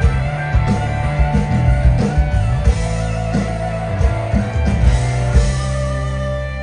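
Live blues-rock band: a sunburst Les Paul-style electric guitar played over bass and drums. Near the end the drum hits stop and a held chord rings on.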